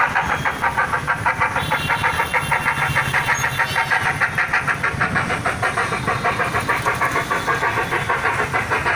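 Steam locomotive chuffing in a fast, even beat of about five puffs a second, steady throughout.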